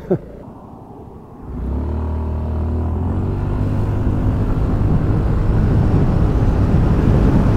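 Honda SH350i scooter's single-cylinder engine ticking over quietly, then about one and a half seconds in opened to full throttle for a 0–100 km/h acceleration run. The engine note climbs and grows steadily louder, with wind noise building as speed rises.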